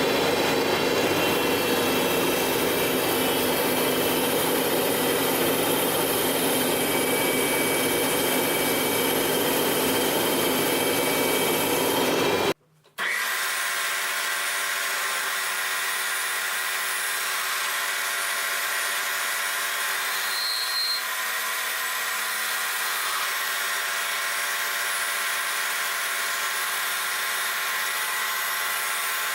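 Metalworking machine tool running and cutting metal, a steady whine with many tones over cutting noise. An abrupt cut about twelve seconds in, after which a slightly quieter steady machining sound with a different set of tones carries on.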